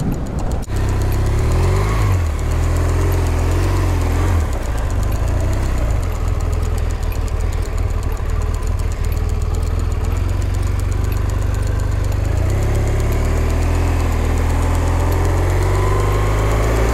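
BMW R 1200 R police motorcycle's boxer-twin engine running under way, its pitch rising and falling with the throttle and climbing steadily over the last few seconds.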